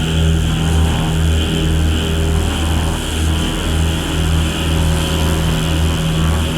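Ritual-industrial drone music: a steady low hum over a throbbing low pulse, about one and a half beats a second, with a constant hissing band higher up.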